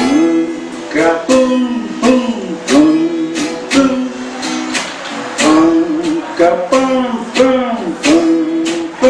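A strummed acoustic string instrument played live in a steady rhythm of about two strums a second, with a voice singing along in places.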